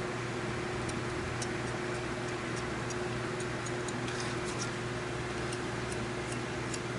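Faint, irregular light clicks of a Lansky honing stone on its guide rod working against a clamped knife blade during final touch-up sharpening, over a steady low hum.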